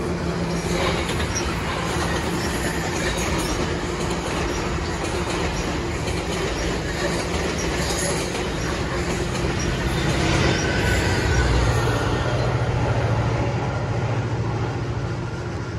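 GO Transit commuter train of Bombardier BiLevel double-deck coaches passing, cab car leading: a steady rumble of wheels on the rails with faint wheel squeals. It swells with a deeper hum about ten seconds in and eases near the end.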